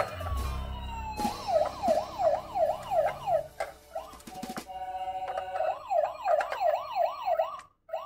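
Toy ambulance's electronic siren sounding: a fast rising-and-falling yelp of several sweeps a second. It breaks off briefly in the middle for a steady tone and a few clicks, then starts again.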